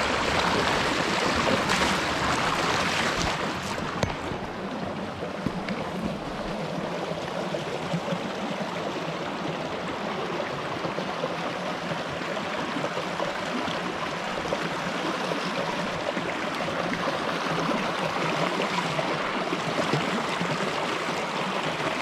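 Small rocky creek running over stones: a steady rush of rippling water, louder in the first few seconds.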